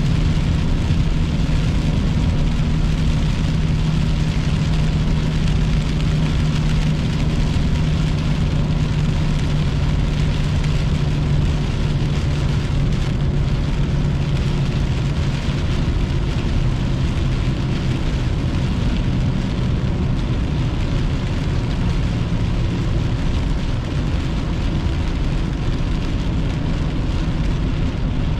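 Car driving in rain, heard from inside the cabin: a steady engine and tyre drone with rain on the windshield. The drone's low note drops a little about halfway through as the car slows.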